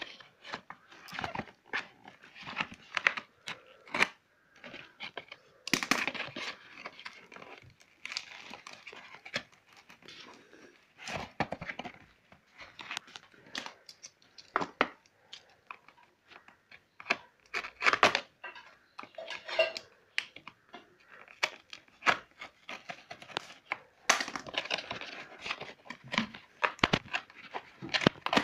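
Packing tape and cardboard on a box being cut with a utility knife and torn open: irregular rips, scrapes and sharp snaps.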